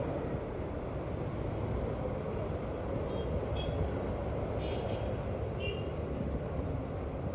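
Steady low rumbling background noise, with a few faint short high chirps or squeaks in the middle.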